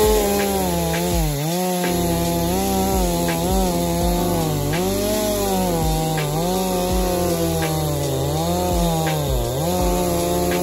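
Chainsaw cutting wood, its engine note dipping under load and picking up again every second or so.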